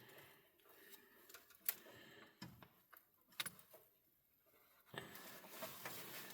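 A few faint, separate metallic clicks and clinks of a ground clamp and its hardware being handled and fitted onto a cable, with a faint hiss near the end.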